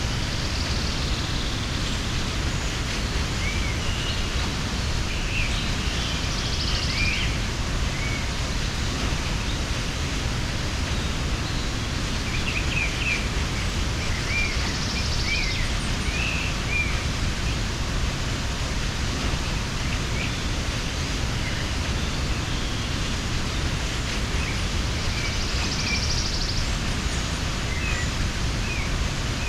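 Steady rush of a mountain waterfall, with small birds chirping in short scattered bursts over it, in three spells about a few seconds in, around the middle, and near the end.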